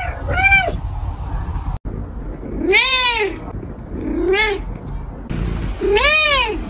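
Two cats meowing: one short meow, then three meows from a second cat, each rising and then falling in pitch, the middle one shorter.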